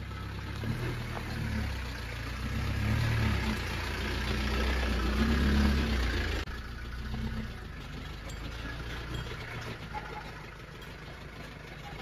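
Nissan pickup truck's engine running at low speed, growing louder over the first six seconds. It then drops suddenly to a quieter, steady idle.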